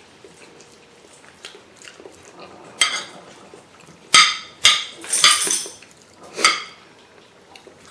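Metal spoon scraping and clinking against a ceramic plate of rice, about five short, sharp scrapes between about three and six and a half seconds in.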